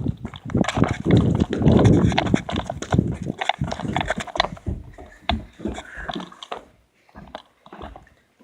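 Rapid, irregular thumps and clicks, dense at first, then thinning out and quieter after about five seconds.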